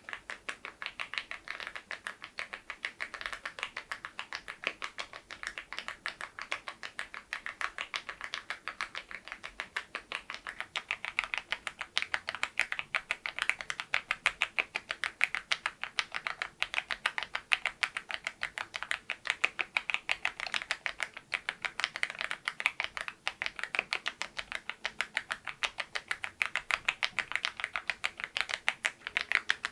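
Steady typing on a mechanical keyboard fitted with low-profile (Berry profile) Godzilla keycaps and LEOBOG grey wood switches: a quick, continuous patter of keystroke clacks, slightly louder in the second half.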